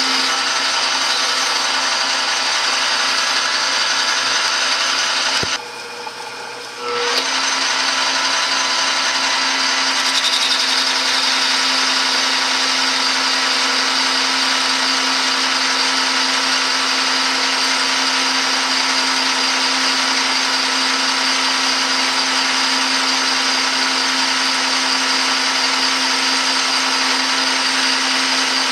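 Metal lathe running under power, its tool cutting along a turning metal bar with a steady hum and hiss of cutting. The sound dips briefly about six seconds in, then carries on.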